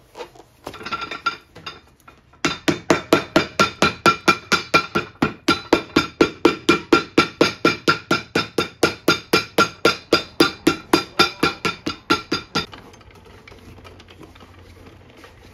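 A cobbler's hammer rapidly striking a leather sole laid on a boot, about four even blows a second, each with a short metallic ring. The hammering goes on for about ten seconds and stops suddenly.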